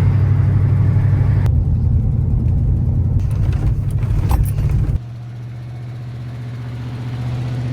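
1993 Ford F-150 pickup engine running with a steady low hum. About five seconds in it drops abruptly to a quieter, steady hum that swells slightly toward the end.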